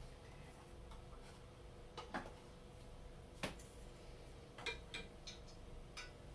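Copper tamagoyaki pan full of oil heating on a gas stove, giving scattered faint clicks and ticks, about seven in all, the sharpest about three and a half seconds in.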